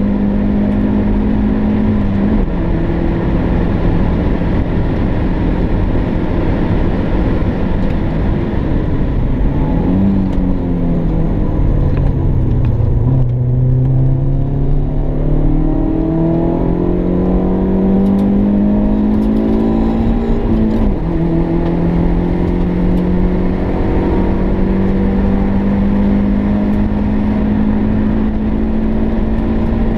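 MG ZR's engine at racing speed, heard from inside the cabin. The revs climb and drop with the gears: an upshift about two seconds in and a brief jump in revs around ten seconds. The revs sink to their lowest about thirteen seconds in, then climb steadily to another upshift about twenty-one seconds in and rise again.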